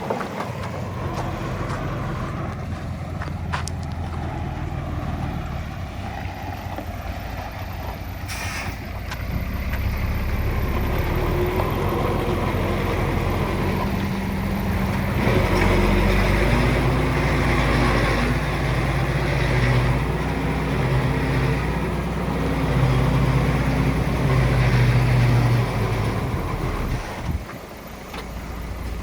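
Heavy diesel machinery running, its engine speed rising and falling as it works, louder in the second half. A short hiss comes about eight seconds in.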